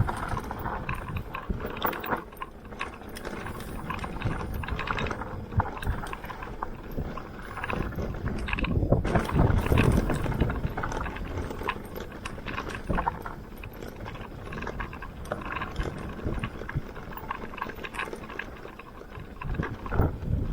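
Mountain bike riding over a dirt trail: tyres rolling and the bike rattling over bumps, with wind on the microphone. It gets louder about halfway through.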